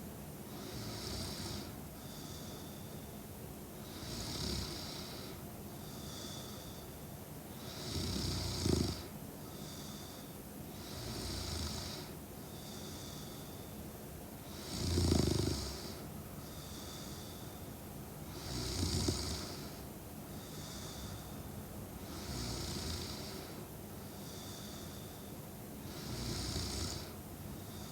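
A sleeping young woman snoring in a slow, regular rhythm, about one snore every three and a half seconds, a few of them deeper and louder than the rest. A faint, thin high whistling note comes between the snores.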